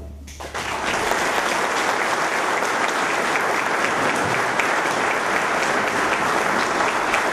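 Audience applause, building up about half a second in as the brass band's last low note dies away, then steady clapping from the whole hall.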